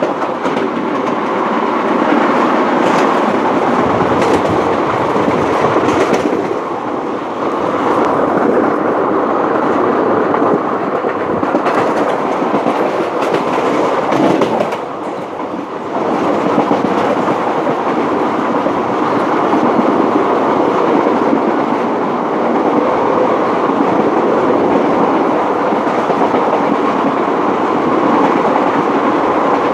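Express passenger train running at speed, heard from on board: a steady rolling rumble with wheels clicking over rail joints now and then.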